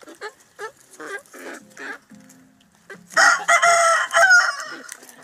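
Chickens clucking in short calls, then a rooster crows once about three seconds in, the loudest sound, lasting about a second and a half.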